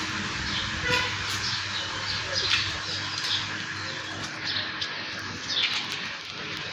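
Small birds chirping repeatedly, short high calls every half second or so, over a steady low hum.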